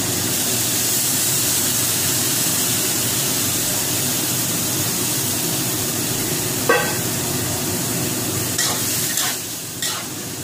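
Washed rice tipped into a hot, oiled metal wok, setting off a steady loud sizzle. A metal spatula clanks once against the wok about two-thirds through, then knocks and scrapes on it in quick strokes as stirring starts near the end.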